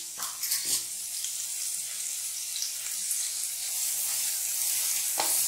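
Chopped onions sizzling in hot oil in a kadhai as they are sautéed to soften, stirred with a wooden spatula that scrapes a few times about half a second in. The sizzle is a steady high hiss that grows louder toward the end.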